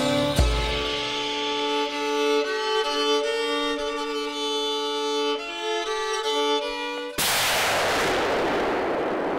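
Violin-led background music, cut off about seven seconds in by a single hunting rifle shot, followed by a long fading echo.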